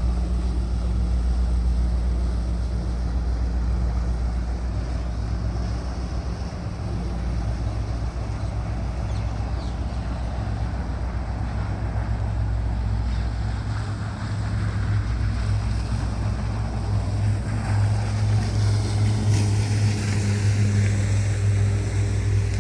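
Boat engine running steadily with a low hum, with water and wind noise over the microphone; the hum grows stronger in the second half.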